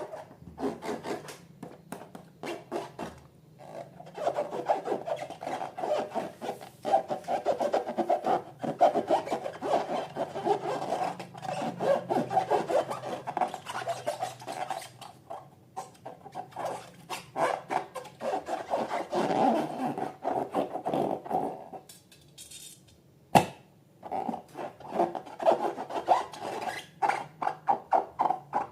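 Slime being squished and worked by hand, a dense run of sticky clicks and pops. It pauses about three quarters of the way through, with one sharp click in the gap, then goes on.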